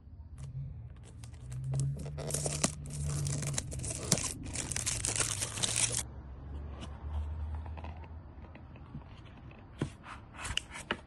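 Perfume box packaging being torn open and handled: a stretch of tearing and crinkling from about one to six seconds in, then a few short rustles near the end.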